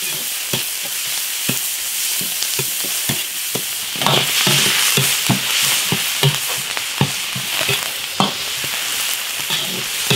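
Beef with ginger and garlic sizzling in an iron wok as it is stir-fried, a spatula knocking and scraping against the wok again and again. The sizzle grows louder about four seconds in.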